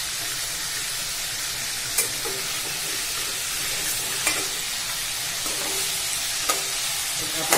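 Chicken pieces sizzling as they shallow-fry in hot oil in a kadhai, a steady hiss of browning meat. A metal slotted spoon clicks against the pan a few times as the pieces are turned.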